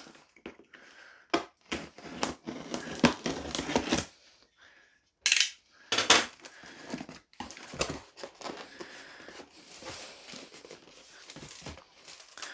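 A cardboard box being opened and unpacked, with irregular rustling, crinkling and knocks of cardboard and packaging. There is a brief sharp burst of noise about five seconds in.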